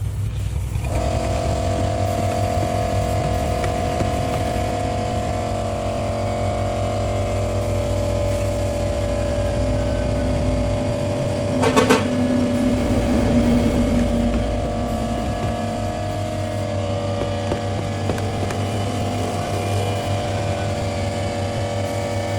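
A motor-driven machine running steadily with a held mid-pitched tone over a low hum. A short burst of sharp metallic knocks comes about halfway through.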